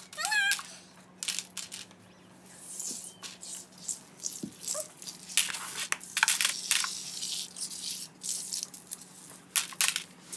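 Small plastic toy building pieces being picked up by hand off a tiled floor and dropped into a cardboard box: irregular clattering and rattling, with a brief high squeal about half a second in.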